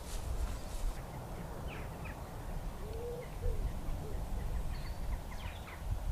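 A pigeon cooing a few low notes about three seconds in, with short high chirps from small birds before and after, over a steady low rumble.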